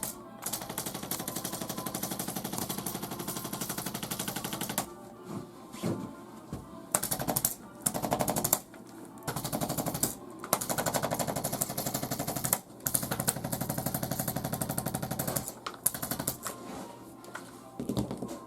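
Handheld electric percussion instrument firing rapid, evenly spaced taps. The taps come in runs of one to four seconds with short pauses between.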